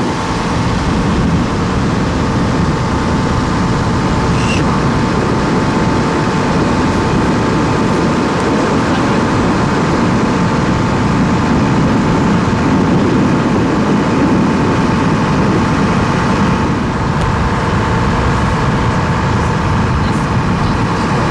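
Motor boat under way: its engine running steadily with the rush of water and wind, and a constant whine riding over the rumble.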